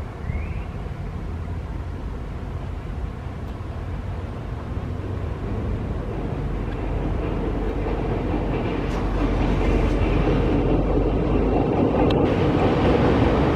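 Two-car diesel multiple unit (Alstom Coradia LINT) approaching over a steel truss bridge, its engine and wheels on the rails growing steadily louder as it comes closer.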